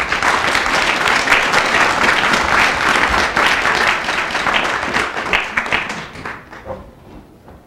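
Audience applauding, many hands clapping, which dies away about six seconds in.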